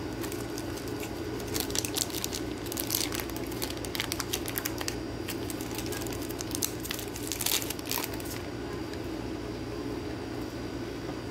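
Clear plastic card holders and card sleeves being handled: crinkling and light clicks, most dense in the middle of the stretch, over a steady low hum.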